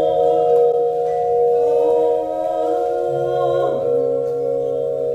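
Music of long, steady held notes layered together, with a few notes sliding in pitch about three and a half seconds in.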